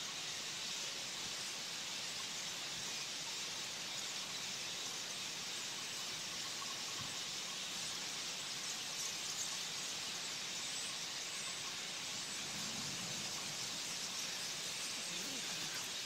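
A huge flock of black birds calling all at once, the many calls blended into one steady continuous din.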